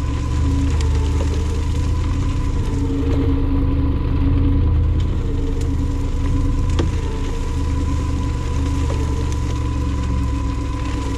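Work truck engine running steadily, with a thin, steady high whine over it.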